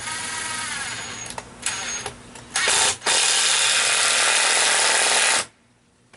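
Power drill run in short bursts of the trigger, then held for about two and a half seconds before stopping abruptly; near the start its pitch falls as it winds down.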